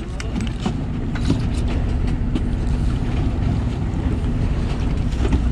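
Fishing boat's engine running steadily with a low hum, with wind buffeting the microphone.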